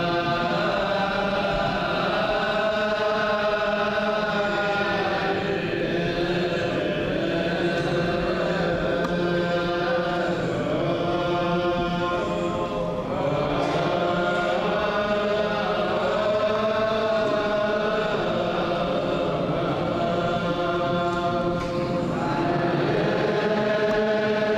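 Ethiopian-rite liturgical chant in Ge'ez, sung by a group of clergy's male voices together. Long held notes step slowly from pitch to pitch.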